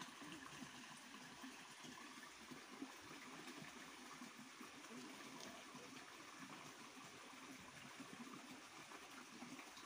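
Faint, steady trickle of a small, shallow stream flowing past the bank.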